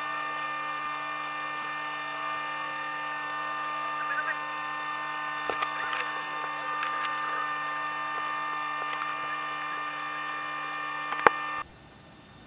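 A steady, unchanging hum with many evenly spaced overtones, with a few light knocks and a sharp click near the end. It cuts off suddenly shortly before the end, leaving only a faint background.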